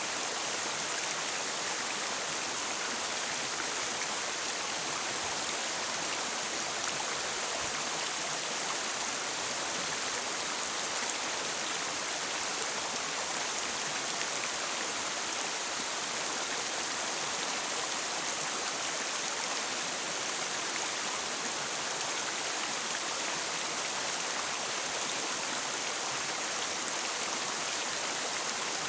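River water flowing steadily, an even hiss of moving water.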